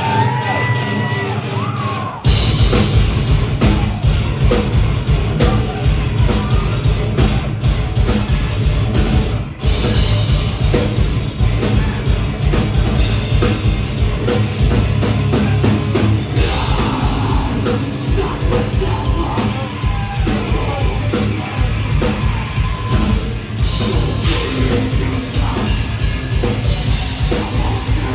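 Live heavy metal band playing loud: distorted guitars, pounding drum kit and yelled vocals. The song opens on a held high tone before the full band comes in about two seconds in.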